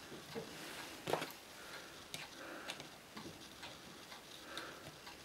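Faint irregular metallic clicks and taps from handling a stainless-steel Ruger Old Army percussion revolver while its base-pin latch is worked. The sharpest click comes about a second in.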